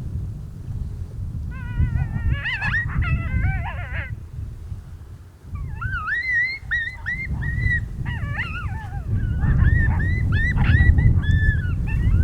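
Coyotes yipping, wavering howls and excited rising-and-falling calls, as in a territorial fight. They come in two bouts: a short burst of quavering howls and yips early on, then a longer run of repeated yips from about halfway through, over low wind rumble on the microphone.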